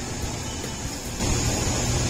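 Background music coming in a little over a second in, over a steady noisy hiss.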